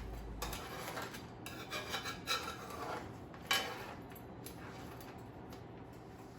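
A utensil scraping and clinking against a pot as boiled crab pieces are lifted out, a run of short scrapes with the sharpest about three and a half seconds in, then quieter.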